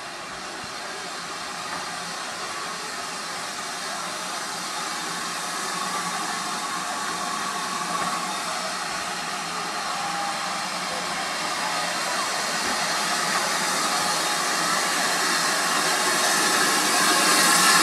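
Small steam tank locomotive approaching at low speed, a steady rushing noise with no clear beat that grows steadily louder as it comes nearer.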